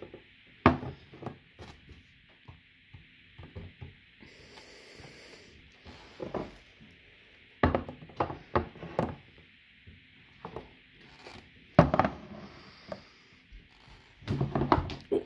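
Metal soup cans being picked up and set down on a wooden tabletop: irregular short knocks and clunks, with a loud one about a second in and louder clusters around eight and twelve seconds in.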